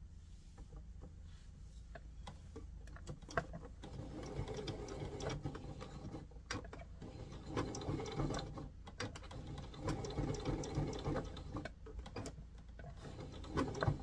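Domestic electric sewing machine stitching in short runs, stopping and starting again every few seconds as the fabric is guided.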